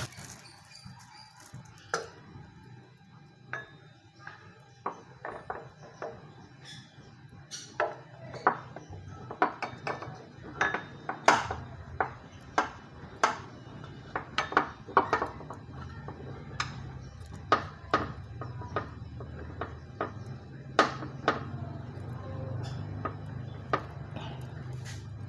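Metal tools and car parts clinking and knocking against each other, a long run of sharp irregular knocks about half a second to a second apart, over a faint low steady hum.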